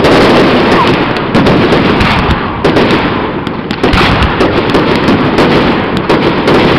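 Aerial fireworks bursting in a rapid barrage: a loud bang right at the start, then repeated bangs every second or so over a dense run of small pops.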